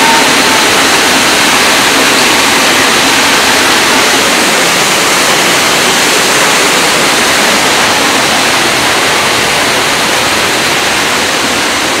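Man-made waterfall: a curtain of water pouring down a wall close by, a loud, steady rush of falling water.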